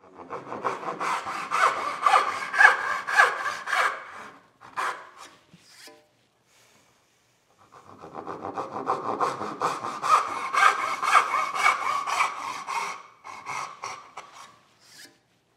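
Brass-backed dovetail saw cutting dovetails in a board held upright in a vise: quick, even rip strokes through the wood, in two runs with a pause of a few seconds between them.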